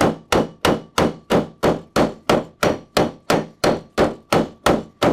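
Hammer striking the rivets of Flexco R2 rivet hinged fastener plates on a conveyor belt end: a steady run of sharp metal blows, about three a second, final-setting the rivets.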